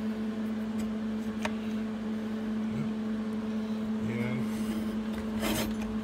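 Light metal clicks and a short rattle as a disc brake caliper is handled and fitted against a steel brake rotor, over a steady low hum in the shop. The clicks come singly about a second and a second and a half in, then a quick cluster about five and a half seconds in.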